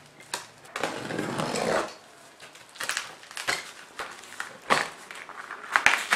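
Plastic stretch wrap and packing tape on a cardboard box being slit with a utility knife and torn off: a longer tearing noise about a second in, then short, irregular rips and crackles.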